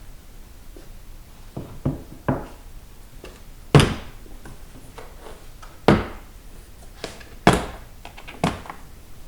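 A hard tool case being worked open: about seven sharp clicks and knocks from its latches and lid, the loudest about four seconds in.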